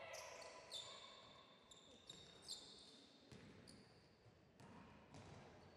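Faint basketball scrimmage sounds on a gym's hardwood floor: many short high sneaker squeaks and a few thuds of the ball.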